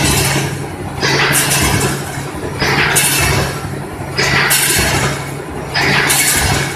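Automatic building wire mesh welding machine running through its cycle, with a burst of hissing noise about every one and a half seconds over a steady electrical hum.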